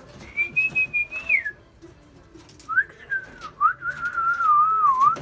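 A person whistling two phrases: a short high note that slides down, then a longer, lower whistle that wavers up and down.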